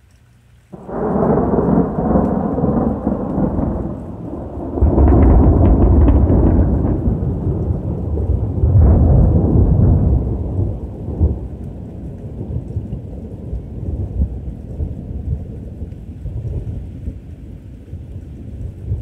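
A thunderclap breaks out suddenly about a second in and rolls on in several loud peals, the strongest around five and nine seconds. It then rumbles away slowly over steady rain.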